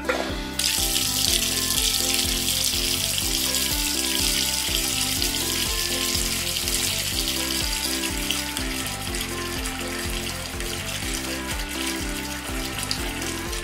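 Running-tap sound effect: a steady rush of pouring water that starts about half a second in, over light background music.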